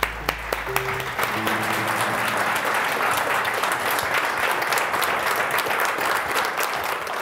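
Audience applauding, a dense clatter of many hands clapping that carries on steadily. A few held notes of background music sound under it in the first second or two.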